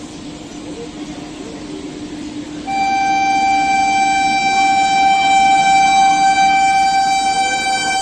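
WAP-7 electric locomotive's horn sounding one long steady blast, starting about three seconds in, over the running noise of the approaching train.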